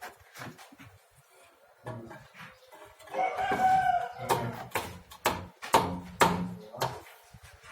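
An animal call held for about a second, then a run of sharp knocks, roughly two to three a second.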